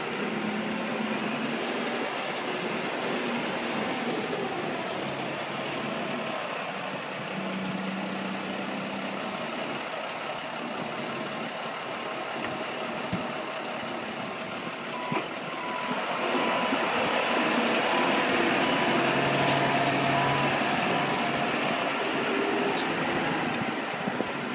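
Engine of a large marina boat-launching forklift running steadily as it carries a boat on its forks, growing louder about two-thirds of the way through.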